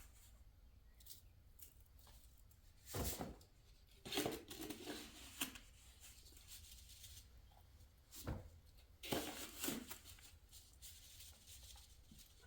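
Sand being scooped and poured into a mortar mix, heard as a few short gritty scraping, pouring bursts.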